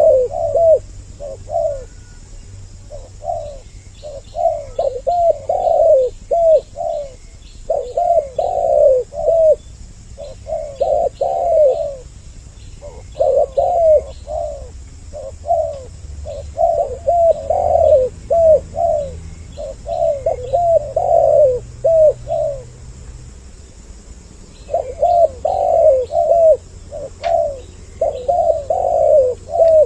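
Spotted doves (tekukur) cooing: loud groups of quick coos repeated in phrases a few seconds long, with short pauses between them, and faint high chirping behind.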